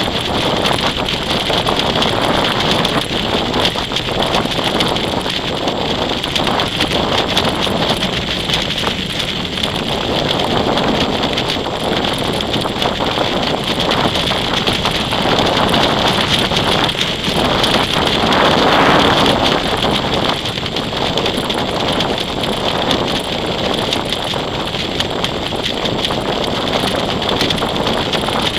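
Loud, steady wind buffeting the microphone of a camera flown on a kite, swelling a little about two-thirds of the way through.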